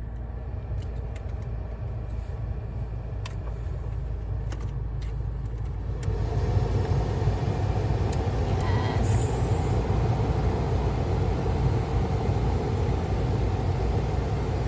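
Jeep Compass cabin with the engine idling and a few light clicks; about six seconds in the HVAC blower comes on and air rushes steadily from the vents.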